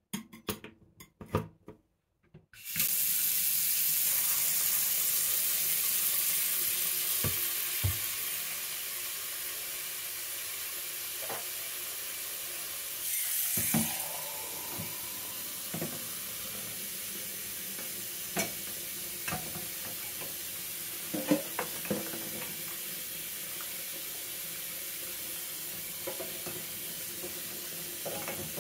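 A few metal clicks as a drain stopper is fitted into a stainless steel sink, then the tap is turned on and runs steadily into the sink, loudest at first and settling as soapy water fills it. Glass jars knock against each other and the sink now and then as they are washed.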